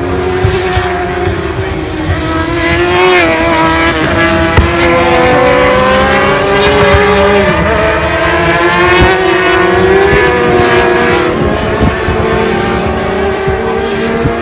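Several racing motorcycle engines at high revs. Their pitches overlap and keep rising and falling through gear changes as a group of bikes passes.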